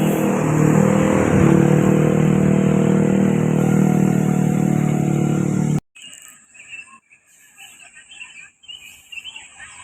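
Bus engine running steadily close by, cutting off abruptly about six seconds in. Then comes a much quieter outdoor background with a few faint bird chirps.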